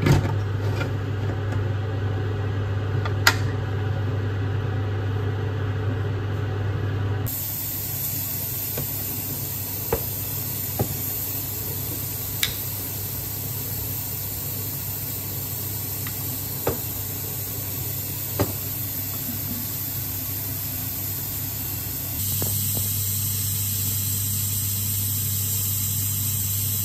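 Steady hiss of steam from a pressure cooker cooking beans and ribs under pressure. A low steady hum sits under it for the first few seconds and again near the end, with a few faint clicks in between.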